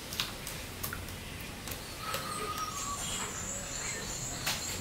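Faint high chirps and whistles of birds in the background, one longer high whistle in the second half, over a few soft taps and plops as thick mango pulp is poured from a blender jar into a steel bowl.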